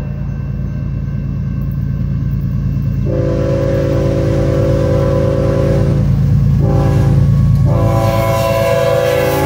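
Air horn of approaching BNSF diesel freight locomotives sounding a long blast, a short blast, then another long blast that is still going at the end, the close of a long-long-short-long grade-crossing signal. Under it is the steady rumble of the locomotives' engines, growing louder as they near.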